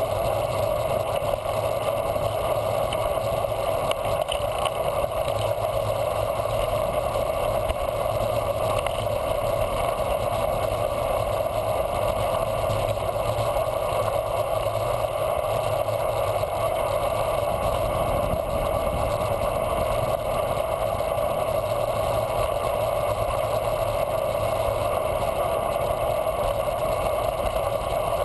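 Steady wind and tyre noise from a bicycle rolling along an asphalt road, heard as an unbroken drone through a handlebar-mounted camera.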